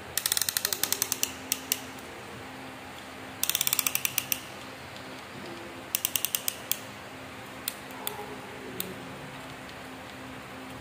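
Piston ring compressor being ratcheted tight around a piston to squeeze its rings. Three quick runs of ratchet clicks, the first about a second long, followed by a few single clicks.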